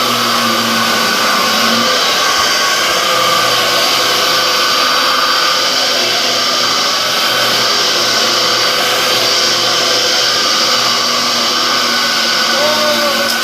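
Dyson DC07 upright bagless vacuum cleaner running steadily on a floor, its motor giving a constant whine.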